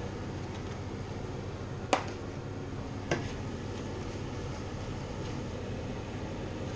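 Steady even background noise with two sharp clicks about a second apart, the first the louder: small plastic spice pots being handled and their lids snapped shut.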